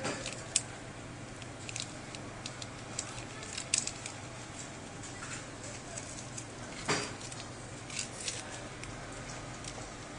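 Scattered small clicks and crackles from fingers working inside an opened tablet, at a ribbon-cable connector and peeling adhesive tape off the battery, with one louder knock about seven seconds in. A steady low hum sits underneath.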